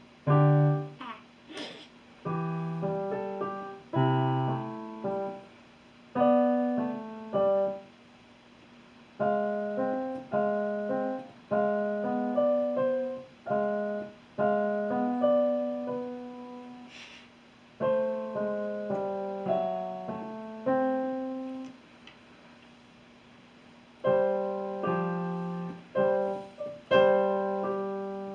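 Piano playing a Christmas carol in phrases of held chords and melody notes, with brief pauses between the phrases.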